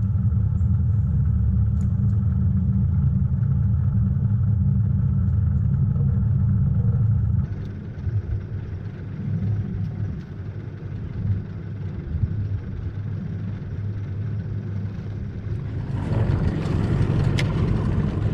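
Boat's outboard motor running, a low steady drone that drops to a quieter, rougher run about seven seconds in. A broad rushing noise joins near the end.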